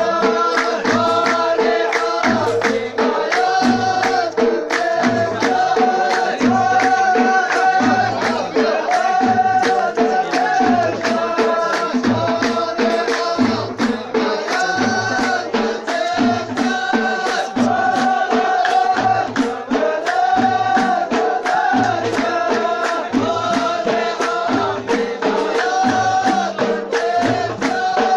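Group singing in unison over steady hand percussion, with a deep drum beat about once a second and sharper strikes between.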